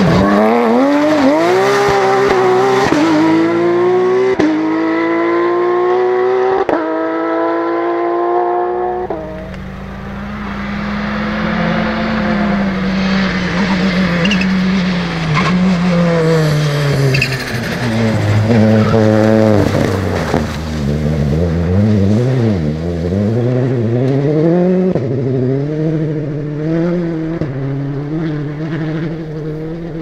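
Porsche 991 GT3 rally car's flat-six accelerating hard, its note climbing in steps through several upshifts. Then, after a sudden change, a Citroën C3 R5 rally car's turbocharged four-cylinder on a gravel stage, its revs rising and falling with gear changes.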